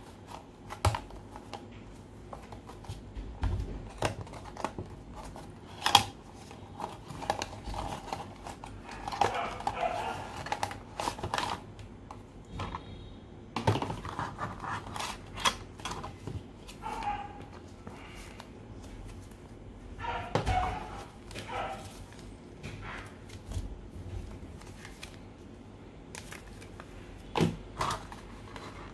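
Cardboard box and clear plastic packaging being handled and opened: irregular rustling, scraping and sharp clicks of card and plastic.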